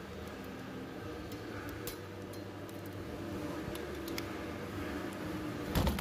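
Light metallic clicks and taps of hand tools and parts on a disassembled Ford steering column as a spring is worked off, with a louder clatter near the end, over a steady background hum.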